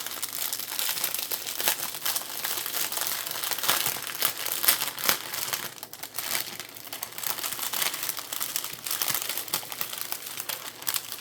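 Small plastic bags of diamond-painting drills being handled and turned over, crinkling continuously with many small crackles.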